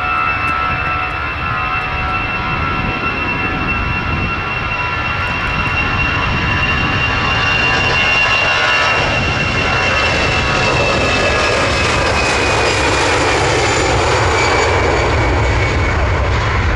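Airbus A320-214's CFM56-5B turbofans at take-off thrust during the take-off roll: a high fan whine over a steady roar. The sound grows louder over the first half as the jet passes, then the whine drops slightly in pitch and a deeper rumble builds as it moves away.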